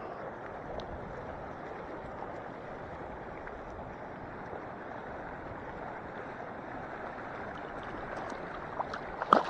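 Lake water lapping and washing steadily along the shore. Near the end there are a few short, sharp splashes or knocks.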